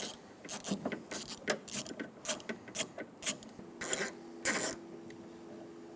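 Ratchet wrench with an 11mm socket on a long extension clicking in short strokes, about two clicks a second, as it backs off a door-handle nut, with two longer rasps of the ratchet about four seconds in.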